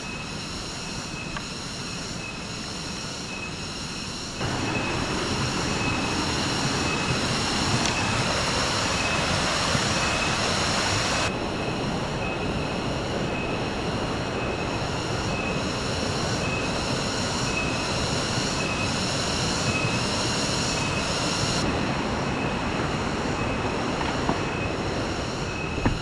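Loud chorus of jungle insects: a high, shrill drone pulsing about twice a second. The rush of a stream under it grows louder from about four seconds in.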